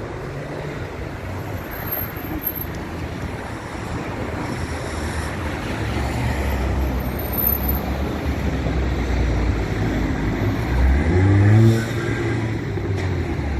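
Steady outdoor rumble and hiss like road traffic, growing heavier, with a motor rising sharply in pitch near the end.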